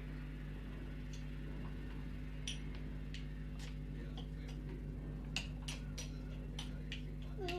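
A steady low hum with light, irregular clicks and taps, sparse at first and coming more often in the second half.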